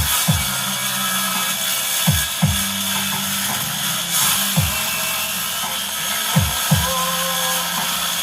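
Bass-heavy music played through a sub scoop subwoofer cabinet during a sound check: held deep bass notes broken by repeated steep falling bass drops.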